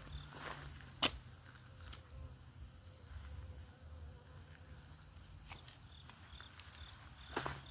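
Steady high-pitched insect trill with short repeated chirps, with a single sharp click about a second in and a few footsteps near the end.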